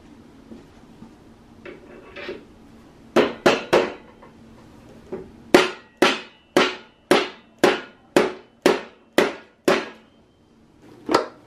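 Rubber mallet striking a drill chuck upward onto the spindle of a Ryobi 10-inch drill press, seating the chuck on its taper. It comes as three quick strikes, then a steady run of about nine strikes at two a second, and one last strike near the end.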